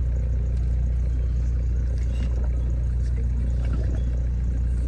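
Engine of a passenger river boat running steadily, heard on board as a constant low drone.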